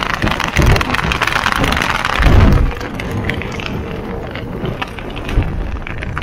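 Wind buffeting the microphone in gusts, loudest about two and a half seconds in, over the crunch and crackle of an electric unicycle's tyre rolling on wet gravel.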